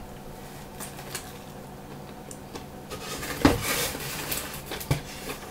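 Burger being eaten close to the microphone: soft chewing and food-handling noises, with a brief louder rustle about three and a half seconds in and a small click about a second later.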